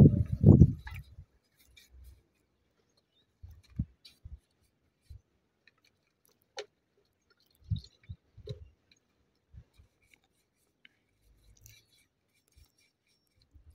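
Scattered light scrapes and taps of hand work on the bars of a steel gate, a small tool rubbing and knocking on the metal about once every second or two. A loud call cuts off within the first second.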